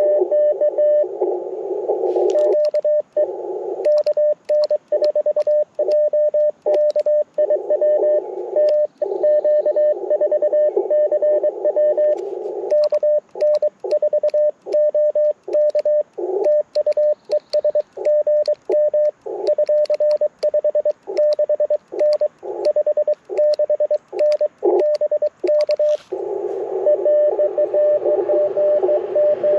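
Morse code on an Icom IC-705 transceiver. About two seconds of receiver hiss, then some twenty seconds of Morse sent by hand at one steady pitch on the sidetone, with the hiss cut out and small clicks of the paddle key under the dits and dahs. Near the end it switches back to receiver hiss with a signal in it.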